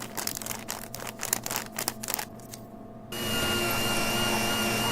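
A quick run of irregular clicks and taps, then about three seconds in a steady hiss with a faint high whine and hum held under it.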